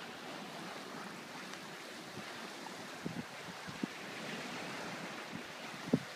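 Steady wind and water noise at a seawall, with a few short low thumps, the loudest near the end.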